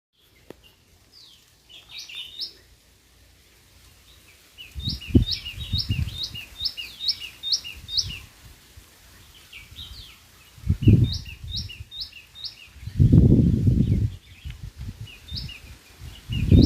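Runs of short, quick chirping calls, about three notes a second, repeated several times, over bursts of low rumbling noise that come and go, loudest near the middle and end.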